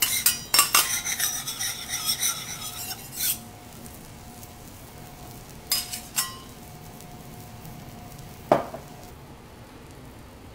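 Metal spatulas scraping and clinking on a steel teppanyaki griddle for the first three seconds or so, over a light sizzle of butter. Then quieter, with two clinks around six seconds and a single knock at about eight and a half seconds.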